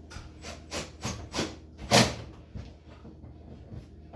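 Light taps seating a handle onto a built-in refrigerator door: about five short knocks in the first two seconds, the loudest about two seconds in, then a few fainter knocks.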